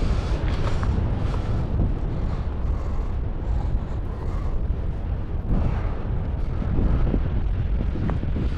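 Wind buffeting the camera microphone: a steady, rough low rumble.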